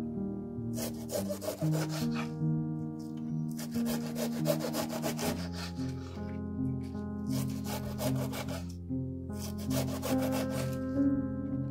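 Kitchen knife finely shredding a head of Chinese cabbage on a wooden cutting board: four runs of quick, crisp slicing strokes. Background music plays throughout.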